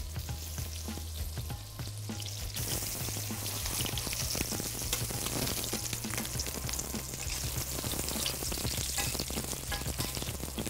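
Apple chunks frying in butter in a sauté pan, a steady sizzle full of small crackles and pops.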